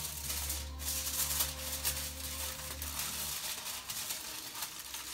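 Aluminium foil crinkling and rustling as a sheet is folded and wrapped by hand.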